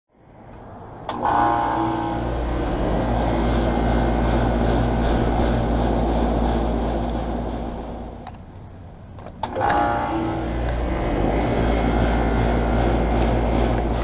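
Central air conditioner condensing unit starting up: a click as it switches on, then the compressor's steady hum with the condenser fan running. The sound sinks a little after eight seconds, and a second startup clicks on about a second later and runs steadily.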